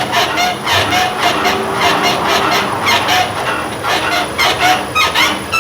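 Ford Ranger rear suspension being shaken on a test machine: the leaf-spring shackles creak and clunk in a quick, steady rhythm of about three to four strokes a second. The shackles are worn, squeaking and knocking, and the rear wheel bearing adds a knock of its own.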